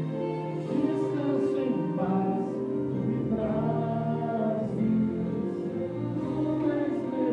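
Choir singing sustained notes over instrumental accompaniment.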